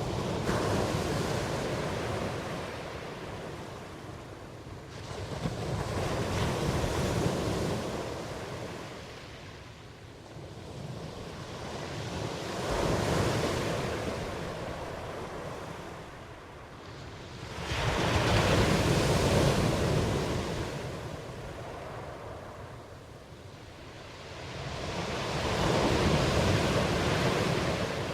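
Ocean surf: waves wash in and draw back in five slow swells, one about every six to seven seconds, each rising to a hiss and fading.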